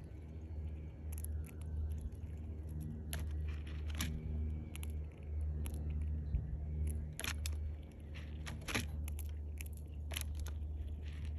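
Fox squirrel cracking sunflower seed shells with its teeth: irregular sharp cracks, sometimes several in quick succession, over a steady low hum.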